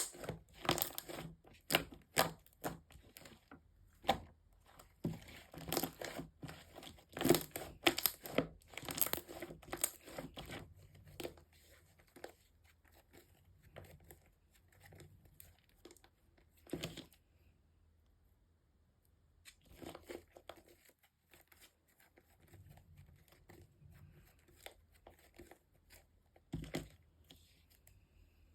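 Slime being worked by hand: crackling, popping and tearing sounds, dense for the first ten seconds or so, then sparser, with a short pause after about 17 seconds.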